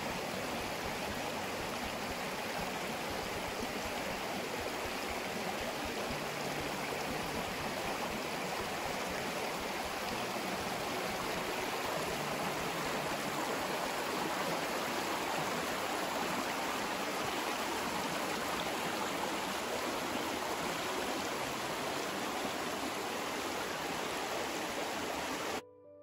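Shallow creek running fast over rocks and riffles: a steady rushing of water that cuts off abruptly near the end.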